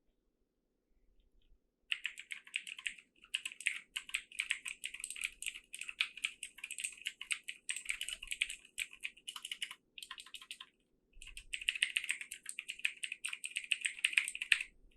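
Typing on a T-Dagger Corvette 60% mechanical keyboard with blue switches: fast runs of sharp, clicky keystrokes starting about two seconds in, with a few brief pauses.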